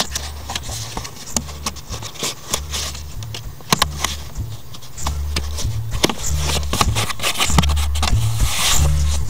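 Fingers scraping and clicking against a plastic interior trim panel while feeling for its clip holes, with a steady scatter of sharp clicks. A low pulsing bass pattern runs underneath, and the sound grows louder about halfway through.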